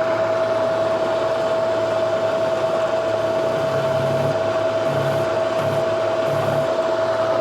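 Milling machine spindle running with a steady whine while a spotting drill spots a hole in a steel drill rod.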